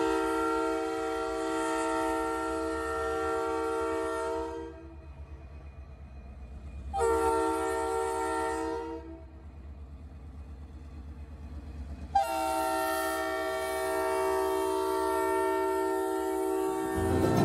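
Diesel locomotive WAMX 3814's horn sounding for a grade crossing: a long blast, a short one, then a long blast held as the locomotive reaches the crossing. This is the close of the standard long-long-short-long crossing signal.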